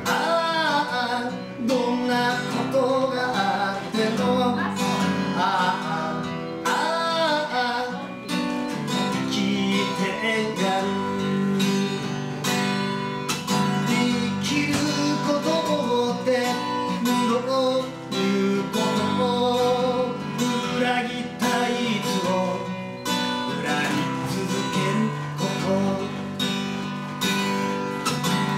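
Live acoustic guitar strummed steadily, with a wavering melody line carried over the chords.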